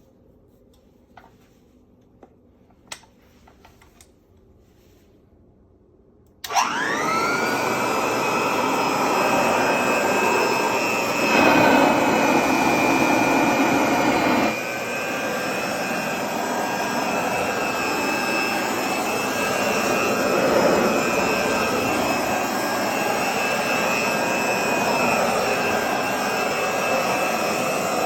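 Restored 1920s Regina Crown upright vacuum cleaner: a few clicks, then about six seconds in the motor starts, spinning up with a rising whine and settling into a steady running drone. It runs louder for about three seconds in the middle before easing back.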